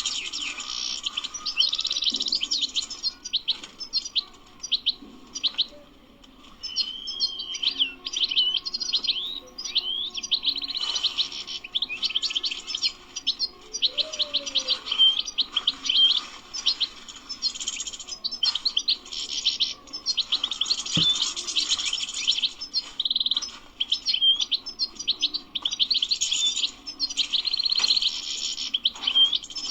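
European goldfinch singing a fast, continuous twittering song of rapid high chirps and trills, easing off briefly about five seconds in before picking up again.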